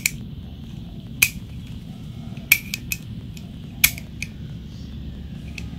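Sharp clicks from the blade slider of an aluminium-bodied Deli DL4260 utility knife as it is worked and the blade locks into its notches: about five clicks, irregularly spaced, over a steady low hum.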